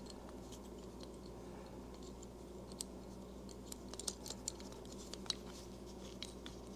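Faint scattered clicks and light taps of small metal mount parts being handled and fitted together, over a steady low hum.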